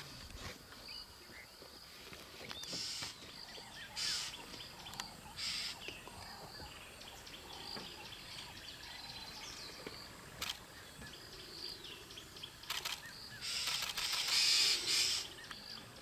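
Quiet bush ambience: a steady faint high drone with scattered small bird chirps, broken by several short bursts of hiss, the longest and loudest near the end.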